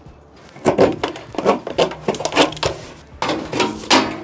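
Thin aluminum downspout being cut through by hand: a series of short cutting strokes about two a second, the last one longer, near the end.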